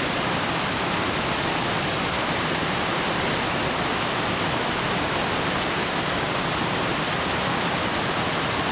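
Waterfall pouring into a pool: a steady, unchanging rush of falling water.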